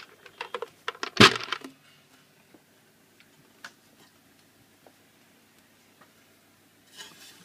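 A few small clicks and one sharp knock about a second in, then quiet with a few faint ticks: hard objects being handled.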